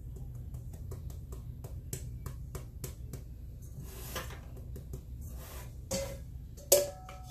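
Flour being sifted through a fine metal mesh sieve over a stainless steel bowl: light, even taps at about four or five a second as the sieve is tapped and shaken, then a short rustle. Near the end, one sharp metallic clink with a brief ring as the sieve knocks against a steel bowl.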